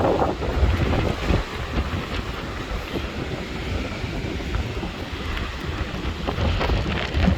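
Strong, gusty storm wind buffeting the microphone, over the wash of storm surf on the shore.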